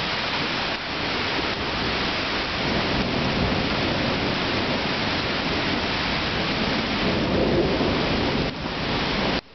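Heavy rain falling steadily, a dense even hiss, that breaks off sharply near the end.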